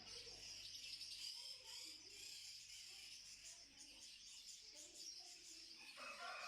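Faint, continuous chorus of many small cage birds chirping together, a dense high-pitched chatter; the bird shop is very noisy, above all in the small-bird section.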